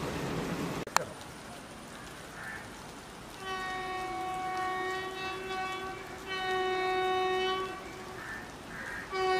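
A second of loud rushing noise that ends in a sharp click, then an electric locomotive's horn sounding from a distance as the train approaches: one long single-pitched blast of about two and a half seconds, a shorter blast, and another starting near the end.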